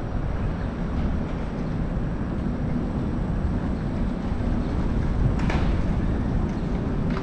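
Steady low rumble of an electric scooter rolling along a city street, with a brief knock about five seconds in.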